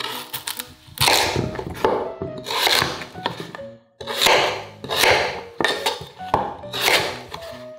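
Kitchen food-preparation sounds: a rhythmic run of noisy scraping or rubbing strokes, about one a second, over background music.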